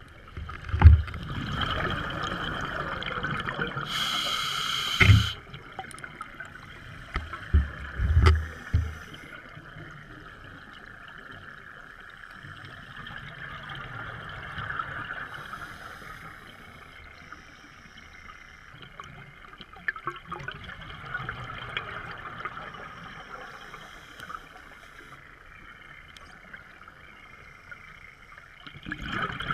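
Underwater sound of a scuba diver breathing through a regulator: a short hiss of inhalation about four seconds in, and deep bubbling rumbles of exhaled air at about one, five and eight seconds. After that the water is quieter, with a steady hiss.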